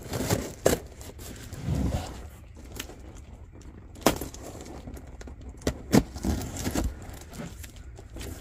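Pocket knife slitting packing tape on a cardboard shipping box, with rustling cardboard and several sharp clicks and knocks as the box is handled and the flaps are pulled open.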